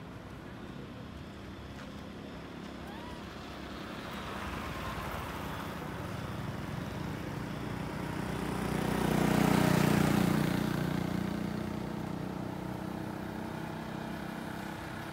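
A motor vehicle driving past: its engine hum grows louder over several seconds, is loudest about ten seconds in, then fades away.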